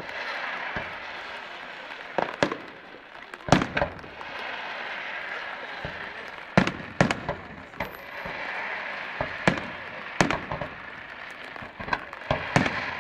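Fireworks shells bursting in a display: a dozen or so sharp bangs, often in quick pairs, every second or two, over a steady hiss.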